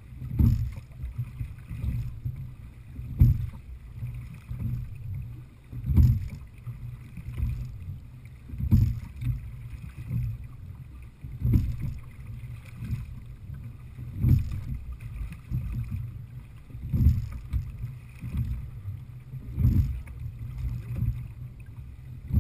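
Little River Marine Heritage 18 sliding-seat rowboat being rowed at a steady pace: the oars and water give a surge of sound with each stroke, about every two and three-quarter seconds, eight strokes in all, over a steady low rumble.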